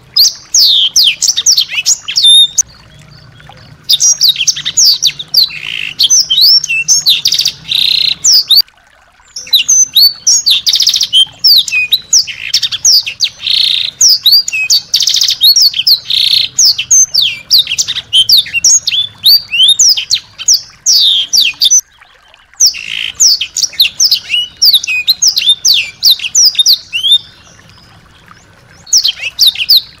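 Small songbird singing: a dense run of rapid, high, sharp chirps, most of them quick downward sweeps. The song comes in phrases of a few seconds, with short breaks between them.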